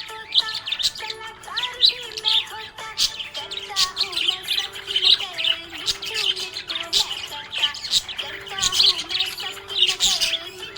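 Budgerigars chirping and chattering, a rapid run of short high chirps and squeaks with no break, over held lower notes.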